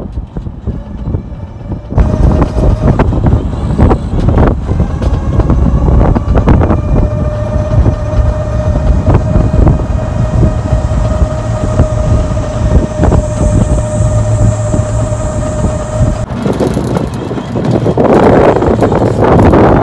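Wind buffeting the microphone on a moving open electric tricycle, a loud, uneven low rumble with knocks from the road, over a steady whine from the electric motor. It gets much louder about two seconds in, and the whine drops out a few seconds before the end.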